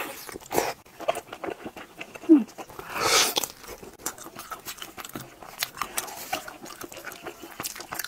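Close-miked eating of braised pork knuckle: wet chewing, lip smacks and the tearing of soft skin and tendon, heard as many short sharp clicks. A louder noisy burst comes about three seconds in.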